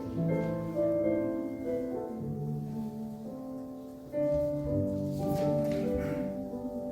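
Electronic keyboard playing a slow hymn in sustained chords that change every second or so, with a fuller chord coming in about four seconds in.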